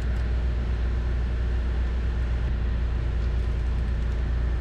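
A steady low hum with several held tones underneath, even in level throughout, with no clicks, knocks or ratchet sounds.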